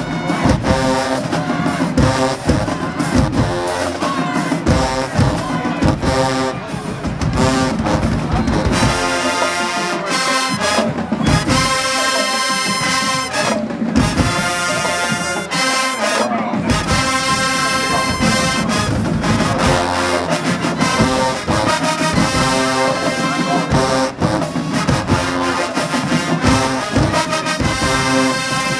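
High school marching band playing loud brass (trumpets and trombones) over rhythmic drumline hits. About a third of the way in, the brass holds long chords while the drums thin out; then the drumming picks up again.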